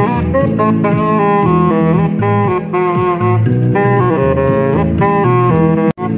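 Saxophone playing a jazzy melody over a backing track with a bass line. The sound cuts out for an instant near the end.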